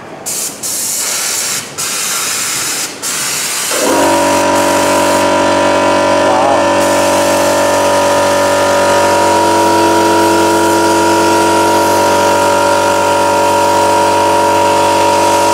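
Inspection camera probe's nozzle spraying air and cleaning liquid with a loud hiss, cut by three or four brief breaks over the first few seconds. About four seconds in, a motor starts and runs with a steady hum under the continuing spray hiss.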